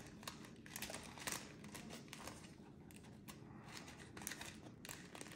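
Faint, scattered crinkling and light ticks from a plastic bag of foam beads and a paper funnel being handled as the beads are poured into a clear Bobo balloon.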